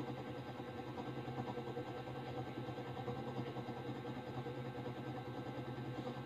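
A steady low mechanical hum, like a motor running at idle, with a fine rapid flutter and no change in pitch.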